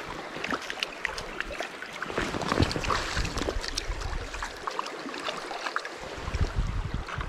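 Shallow stream rippling over stones, with splashing and small knocks as a small trout is grabbed by hand from the water.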